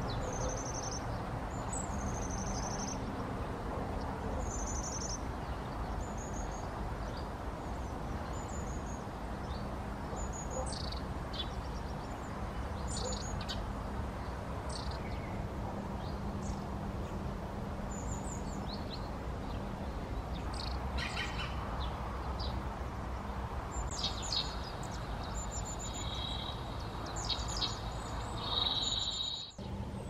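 Long-tailed tits calling: short, thin, high-pitched notes, often given in quick little rows of three or four. They sound over a steady low background rumble.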